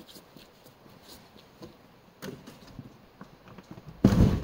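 Scattered light clicks and knocks of demolition debris being handled, then one sudden loud thud near the end.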